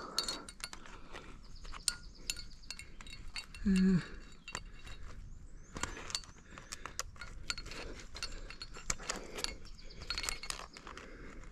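Metal climbing gear (carabiners and cams on a harness rack) clinking and clicking repeatedly as the climber moves. A short voice sound about four seconds in is the loudest moment.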